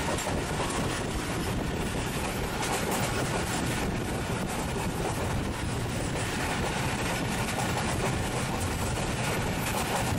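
Steady rushing rumble of a passenger train running at speed, wheels on the track and air rushing past, heard from a carriage window.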